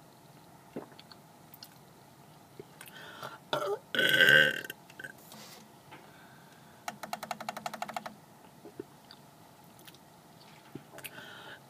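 A person belching: one loud belch about four seconds in, then a quieter, rattling belch about seven seconds in.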